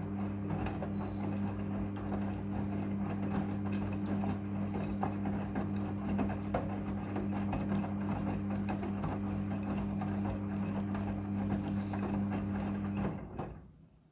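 Midea front-loading washing machine running, a steady motor hum with irregular rattling and clicking over it, which stops about a second before the end.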